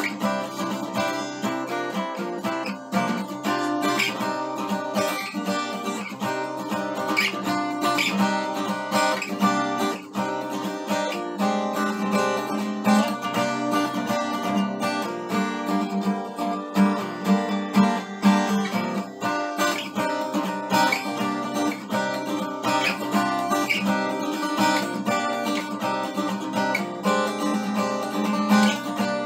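Acoustic guitar with a capo, strummed steadily in an unbroken stream of chords.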